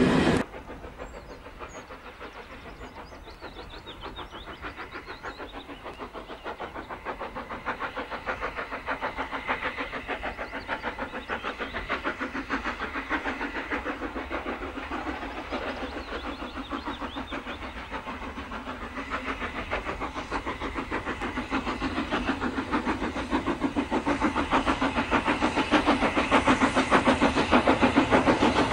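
Steam locomotive working hard on its approach, its exhaust beating in a fast, even rhythm that grows steadily louder as it draws near.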